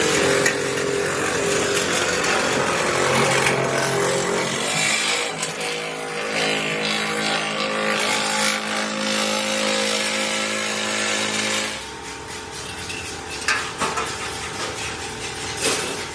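Band saw running and cutting through the edge of a truck bumper: a steady motor hum with the rasp of the blade. About twelve seconds in this gives way to a quieter background with a couple of sharp knocks.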